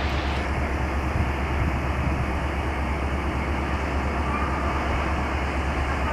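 Steady low rumble of a diesel shunting locomotive running on a nearby track, with no horn or distinct clanks.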